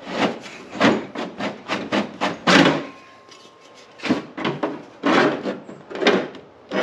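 Irregular knocks and clunks of a 3-inch metal intake pipe being shifted and adjusted in a hole in a Jeep's fender while it is test-fitted, with a lull in the middle.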